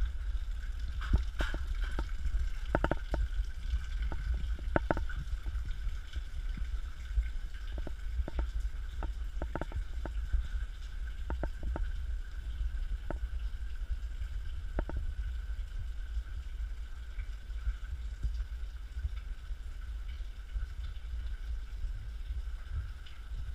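Low wind rumble on a handheld GoPro's microphone, with a scatter of sharp clicks and taps that thin out and stop about halfway through.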